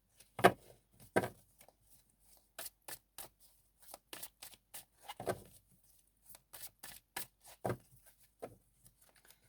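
Tarot cards being shuffled and handled by hand: an irregular run of short card flicks and slaps, with a few louder taps.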